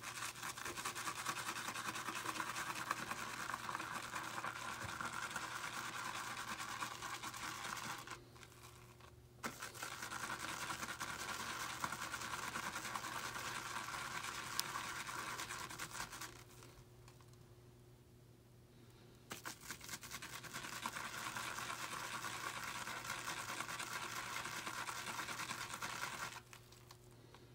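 Wet shaving brush whisking shaving cream round a lather bowl: a fast, steady swishing scratch of the bristles against the bowl as the lather is built up. It comes in three bouts, stopping twice for a second or two, and ends shortly before the close.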